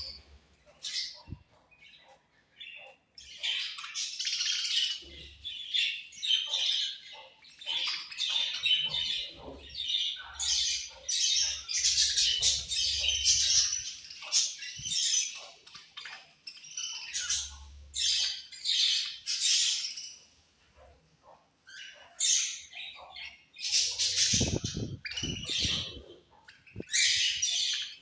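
A flock of budgerigars chirping and squawking in rapid, overlapping chatter, with a short lull about two-thirds of the way through.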